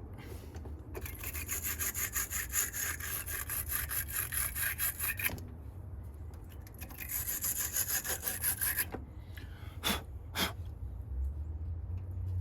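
Wire-bristle battery terminal cleaner scraping a battery post in two bursts of quick back-and-forth strokes, followed by two short clicks near the end.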